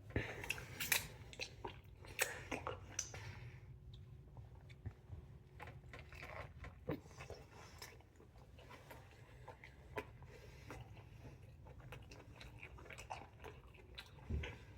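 Close-miked biting and chewing of a Chicago-style hot dog, with crisp crunches from its crunchy toppings, busiest in the first three seconds and then softer, wetter chewing with occasional sharp clicks.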